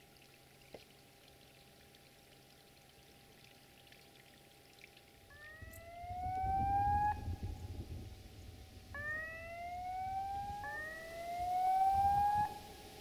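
A siren-like tone rising in pitch, then starting again from low, four times from about five seconds in, over a low rumble.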